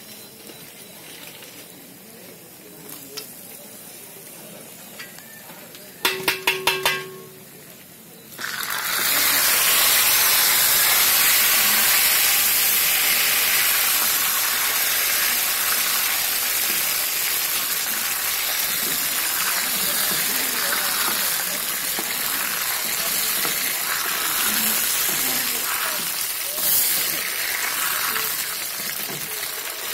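A quick run of metallic clicks, then from about eight seconds in a sudden, loud, steady sizzle as food fries in hot ghee in an aluminium pot and is stirred with a steel ladle.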